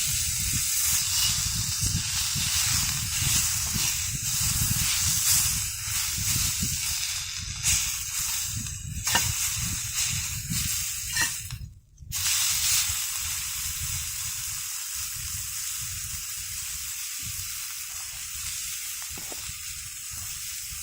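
Steak sizzling as it pan-fries in hot oil, a steady frying hiss with a few light clicks. The sound cuts out for a moment about twelve seconds in, then carries on a little quieter.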